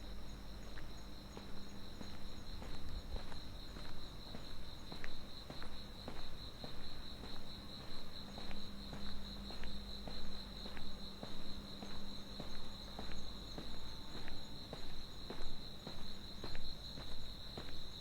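Insects, crickets, trilling in a steady high-pitched chorus, with a person's walking footsteps at about two steps a second and a faint low hum underneath.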